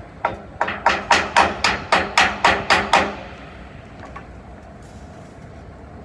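A hammer striking in a fast even run of about a dozen blows, roughly four a second, that stops about three seconds in.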